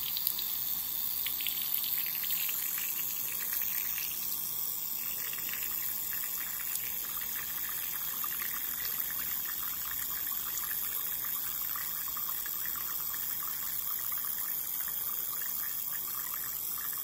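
Vegetable oil spray can held down, spraying a long steady hiss of oil into a tablespoon.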